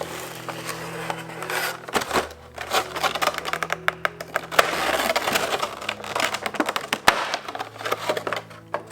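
Cardboard and plastic Funko Pop packaging crackling and clicking as it is handled and opened, over soft background music.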